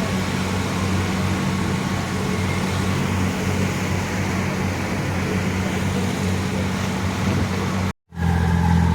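An engine running steadily with a low, even hum. It cuts out abruptly for a moment near the end and comes back louder.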